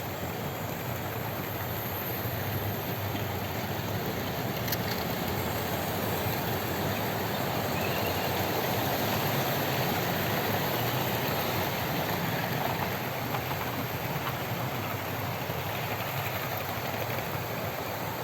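OO gauge model train running along the track: a steady rumble of motor and wheels on rail that swells a little toward the middle and eases off again.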